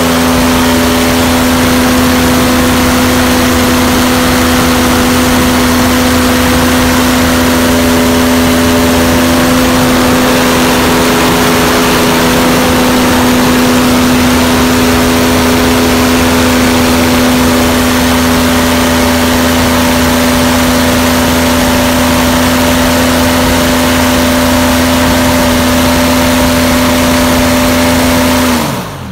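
V-6 aircraft engine for a Long-EZ, on a test stand turning a propeller, running at full power with a steady, even pitch. Near the end the engine speed falls and the sound drops away as it is brought down from full power.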